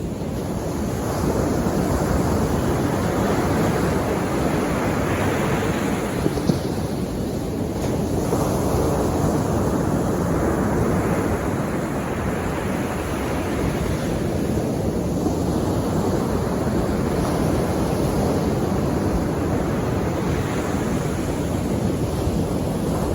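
Sea waves washing onto the shore, the surf swelling and falling back every few seconds. A brief click about six seconds in.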